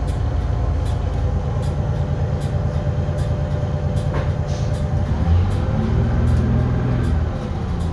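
Detroit Diesel 6V71N two-stroke diesel engine of a 1982 GM New Look bus running, heard inside the passenger cabin. It grows louder about five seconds in and eases off shortly before the end.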